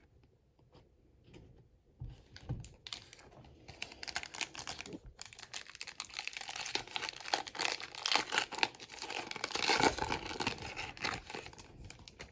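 Trading card pack wrapper from a 2025 Donruss football hobby box being torn open and crinkled. A dense run of crackling starts about three seconds in and is loudest near the end.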